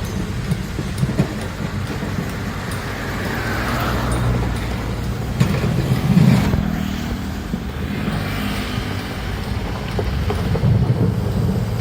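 Heavy diesel engine of an excavator running steadily under load, with scattered knocks and clanks and a brief rising whine about three seconds in.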